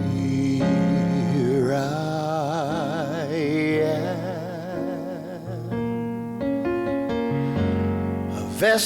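Slow devotional song: sustained keyboard chords under a solo voice holding long notes with vibrato.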